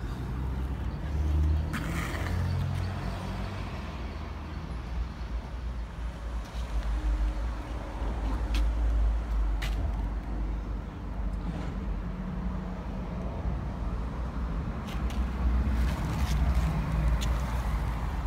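Road traffic on the road below: a van passing at the start and a city bus approaching near the end, their engines and tyres giving a steady low rumble that swells twice. A few sharp clicks are heard.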